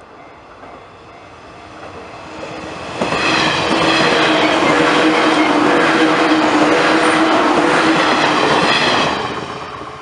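JR East 115 series electric multiple unit passing at speed. It grows loud about three seconds in, holds for several seconds as the cars go by, and fades away near the end. A level-crossing bell rings in steady repeats underneath.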